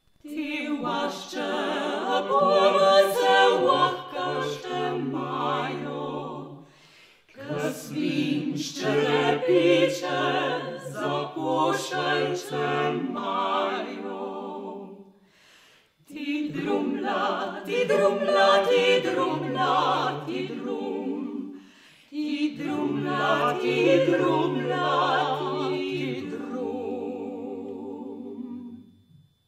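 Mixed vocal quartet of classical singers, one man and three women, singing unaccompanied in four-part harmony. They sing four phrases with short breaths between them, and the last closes on a long-held low note.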